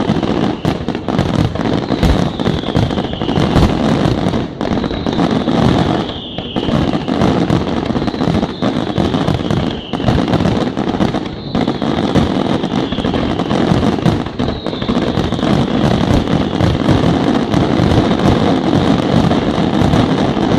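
Fireworks display going off in a dense run of bangs and crackling. A high falling whistle repeats about every one and a half to two seconds until roughly two-thirds of the way through.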